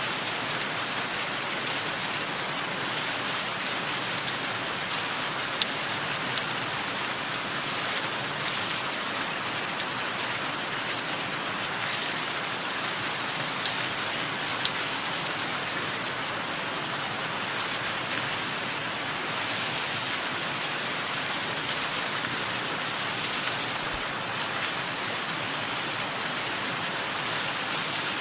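Steady rain falling, with small birds chirping over it in short high chirps and brief trills every second or two.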